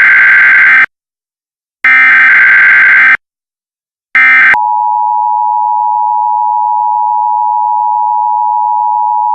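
Emergency Alert System tones: bursts of the SAME digital header's warbling data tones, two full ones about a second apart and a third cut short, then the steady two-tone EAS attention signal starting about four and a half seconds in, a little quieter than the bursts.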